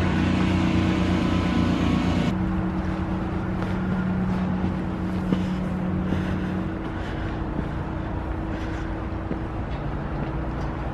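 A steady mechanical hum, like a motor or engine running, holding a few low pitches; its lowest tone dies away about seven seconds in.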